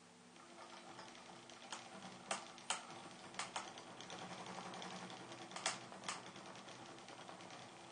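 Small electric motor of a vibrating-string wave toy running with a steady low hum and a light rattle, broken by about seven sharp clicks spread through the middle of the clip.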